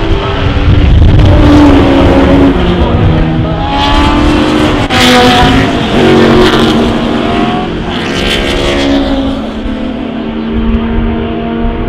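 Historic racing cars running on the circuit, engines revving hard with the pitch climbing and dropping through gear changes. The sound swells loudest as cars come past, a couple of times around the middle.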